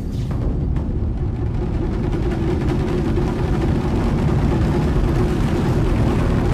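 Continuous deep rumble of a volcanic ash eruption, loud and steady, with a low held hum running through it.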